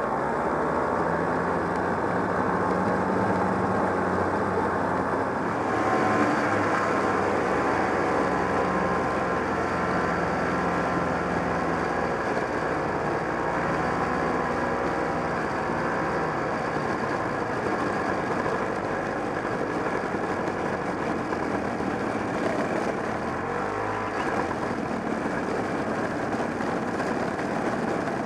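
Vintage 1969 Polaris Mustang snowmobile's JLO 372 two-stroke engine running steadily under way, its pitch wavering up and down with the throttle.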